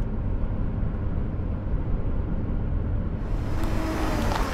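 Steady low rumble of a 1979 Mercedes-Benz 300SD's five-cylinder turbodiesel and tyres on a wet road, heard from inside the cabin while driving. About three seconds in, a brighter crackling sound with sharp ticks and a falling tone comes in over it.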